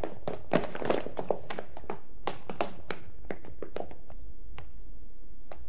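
Irregular light taps and clicks, many in the first few seconds and fewer after, over a steady low hum.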